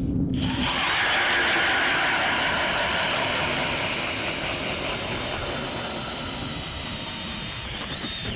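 Milwaukee M18 Fuel cordless drill spinning an 8-inch Strikemaster Lazer auger bit down through lake ice. A steady high motor whine slowly sinks in pitch under load, over the grinding hiss of the blades cutting ice. It starts about half a second in.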